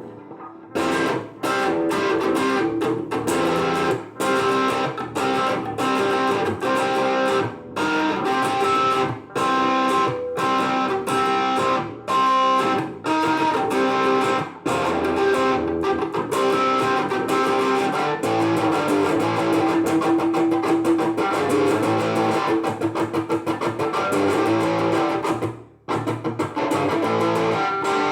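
Electric guitar played through a RAT-style distortion pedal into a transistor amplifier: short distorted chords and riffs, each cut off by a brief stop, with a longer held passage after the middle.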